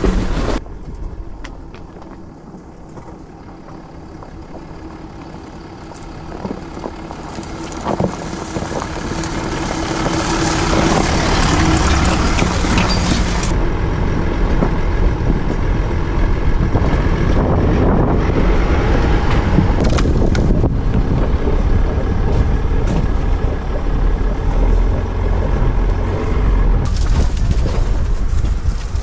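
Land Rover Discovery 4 driving over a frozen track, its tyres crunching and breaking through ice as it moves. The sound starts quieter and grows loud and steady from about ten seconds in.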